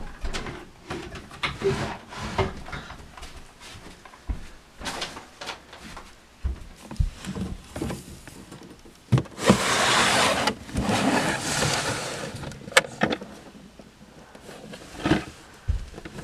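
Someone searching a bedroom by hand: scattered knocks, thuds and handling noises, with a louder stretch of rustling about ten seconds in and a sharp knock shortly after.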